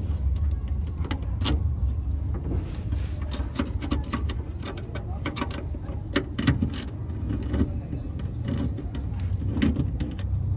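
Socket ratchet and wrench working the bolts of a propeller shaft's center bearing bracket: irregular metallic clicks and clinks of the tools on the bolts, over a steady low rumble.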